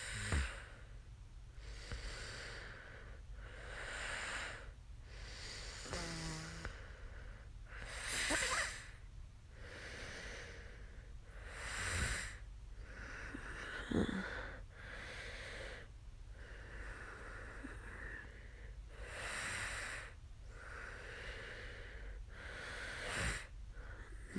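A woman breathing close to the microphone: hissing breaths in and out every two seconds or so, with a few short throaty sounds in between.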